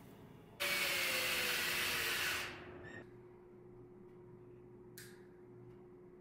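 Power tool whirring for about two seconds, starting abruptly about half a second in, its pitch sagging slightly before it stops. A faint steady hum remains afterwards, with a short click about five seconds in.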